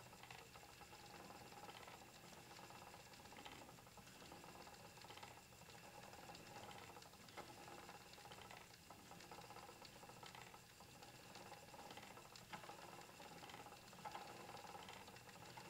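Faint, even rhythm of a wooden spinning wheel being treadled, a soft swish coming round a little under every two seconds, while cat fur is spun into fine yarn.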